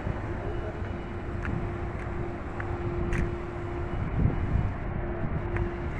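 Steady outdoor rumble with wind on the microphone, under a faint steady hum that drops out briefly now and then.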